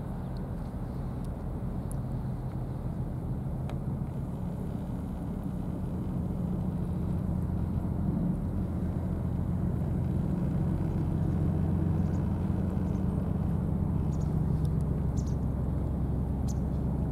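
Steady low engine-like rumble that slowly grows louder, with a few faint clicks near the end.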